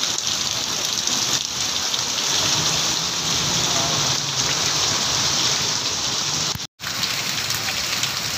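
Heavy rain pouring onto a flooded lane and standing water: a dense, steady hiss. It drops out completely for a split second near the end.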